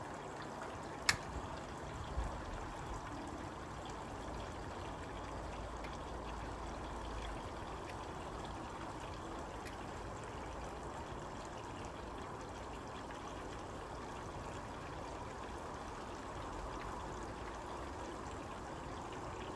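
Steady, even rushing hiss of outdoor background noise, with one sharp click about a second in and a softer knock a second later.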